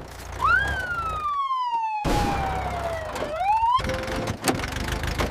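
Police siren wailing: a quick rise, a long slow fall, then a rise again near the end, over a low engine rumble.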